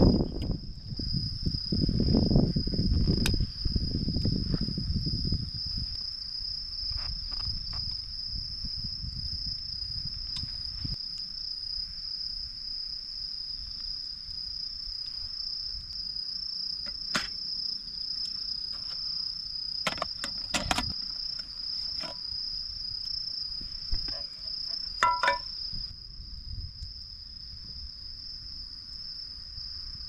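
Insects trilling steadily at one high pitch, with a low rustling noise in the first few seconds and a few sharp clicks past the middle.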